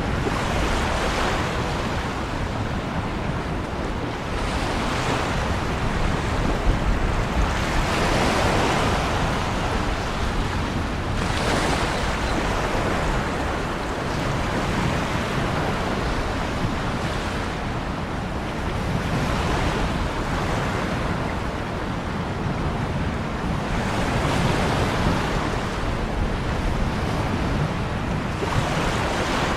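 Ocean surf: waves breaking and washing in a continuous rush that swells every few seconds.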